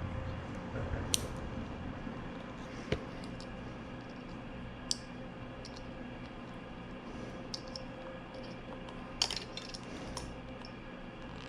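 Scattered light clicks and knocks of small parts and wiring connectors being handled, with a small cluster of them about nine seconds in, over a steady low hum.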